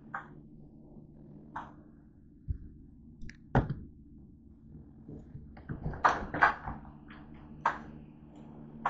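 Scattered knocks, taps and clicks, the loudest about three and a half seconds in and a quick cluster around six seconds, over a steady low hum.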